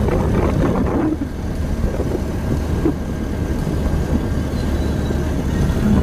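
Steady low rumble of a moving vehicle, with wind noise on the microphone; it drops slightly about a second in.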